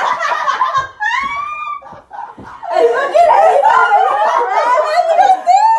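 Girls laughing and giggling in a small room, their voices overlapping in bursts, with a short lull about two seconds in.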